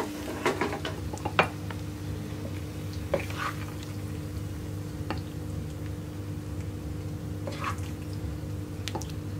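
Sauced penne being served from a non-stick pan with a spatula: a few soft, wet squishes and light utensil clicks spread out over the seconds, over a steady low hum.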